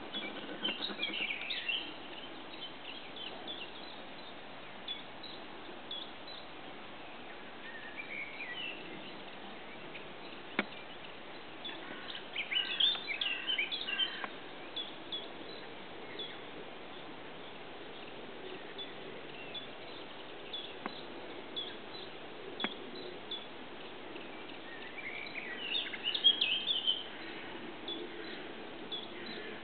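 Small birds singing in short warbling bursts over a steady background hiss, with scattered brief high chirps in between; the loudest bursts come about halfway and near the end. One sharp click about a third of the way in.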